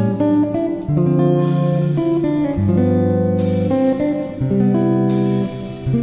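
Instrumental background music: a slow melody of held notes, changing about once a second.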